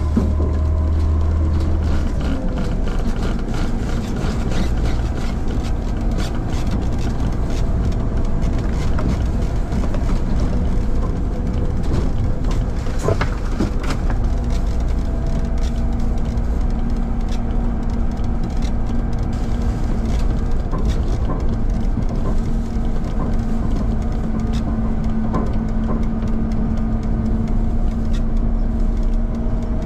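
Front-load garbage truck running steadily with a low rumble and scattered knocks; a steady hum comes in about halfway through.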